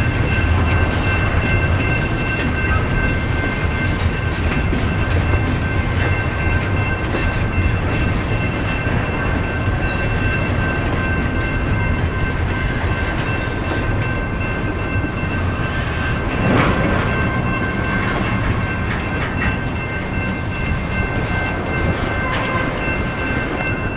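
Double-stack intermodal freight train rolling through a level crossing: a steady rumble of wheels on rail with scattered clicks from the rail joints. Crossing bells ring steadily over it.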